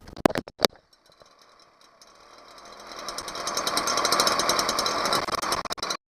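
A few sharp knocks, then a Stihl BR 400 backpack blower's small two-stroke engine runs with a fast even pulse, growing louder over a couple of seconds before cutting off abruptly near the end. The engine is running after its clogged exhaust port was cleaned.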